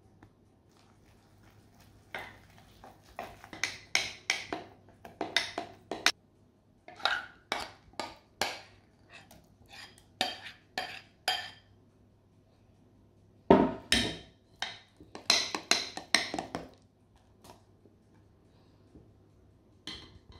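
Metal spoon clinking and scraping against a glass mixing jug and a bowl as muffin batter is stirred and scraped together by hand. A quick run of strokes begins about two seconds in, and the loudest knocks come a little past the middle.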